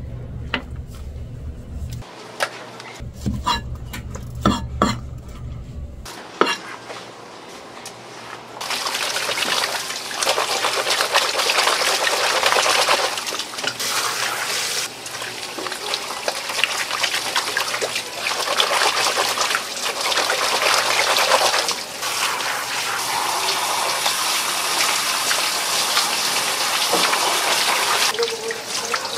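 A low hum with several sharp knocks and clatters. Then, from about nine seconds in, water running hard and steadily, as from a tap or hose, with a few brief dips.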